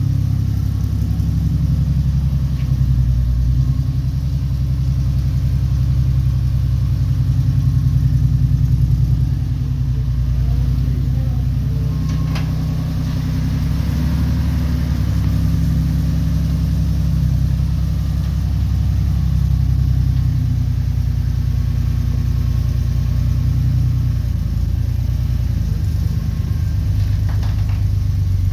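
1969 Jeep CJ5 engine running steadily on a cold start after sitting for about seven months, its revs swelling slightly a couple of times. A short click sounds about twelve seconds in.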